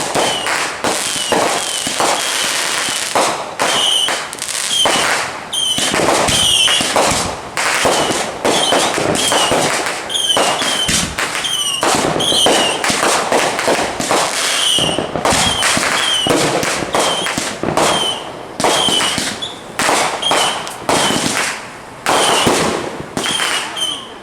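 Fireworks going off in a dense, continuous barrage: rapid overlapping bangs and crackles, several a second, with no pause.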